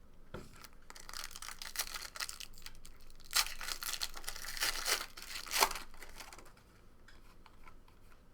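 Trading-card pack wrapper being torn open and crinkled by hand: a run of rips and rustles lasting about five seconds, the two loudest tears in the second half of it.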